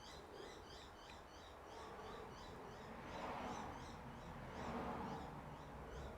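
A small bird chirping: a fast run of short, high chirps, about four a second, fading out after about four seconds. Faint rubbing noise underneath.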